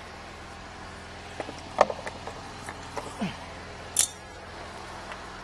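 Scattered light clicks and knocks of a drain inspection camera's push cable being handled at the edge of a drain pit, the loudest about two seconds in, with a brief sharp hiss about four seconds in over a steady low hum.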